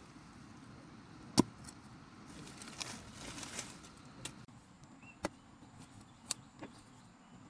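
A few separate sharp knocks or taps, the loudest about a second and a half in, with a stretch of rustling between them.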